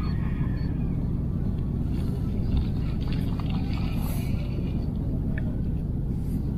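Wind buffeting the camera microphone in the open: a steady low rumble, with a few faint light ticks in the second half.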